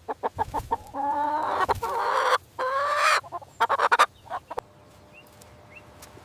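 Chicken clucking, with two long drawn-out calls in the middle; the calls stop about four seconds in, leaving only a couple of faint chirps.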